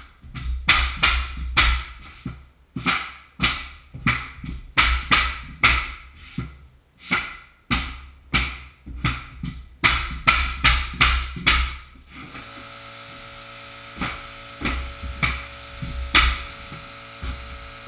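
Repeated sharp knocks of a hardwood flooring nailer being struck to drive nails into the floorboards, one to two a second and often in quick pairs. About two-thirds of the way through, the knocks thin out to single taps every second or so, as the boards are tapped into place, over a steady hum.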